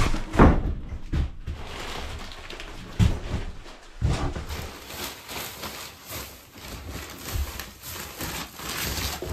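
Wood-shaving bedding being poured out of its plastic-wrapped bale onto a floor: a continuous rustling hiss of falling shavings, with crinkling plastic and a few dull thumps.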